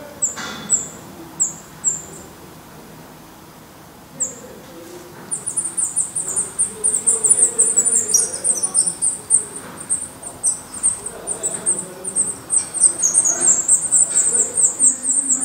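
Black redstart nestlings begging. A few short, thin, high chirps come first, then from about five seconds in a rapid, continuous run of high-pitched begging calls as a parent bird comes to the nest.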